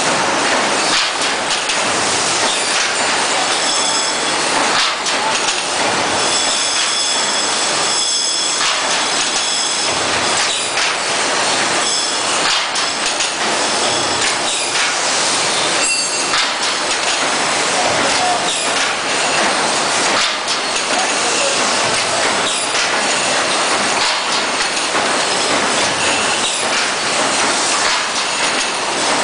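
Automatic copper tube straightening and cutting machine running: a loud, steady mechanical clatter with frequent knocks, and a high squeal from about four to ten seconds in.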